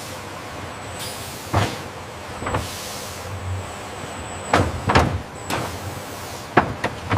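Factory handling machinery running with a steady mechanical hum, punctuated by a series of sharp knocks. The knocks come as heavy blocks are moved along, several in quick succession in the second half.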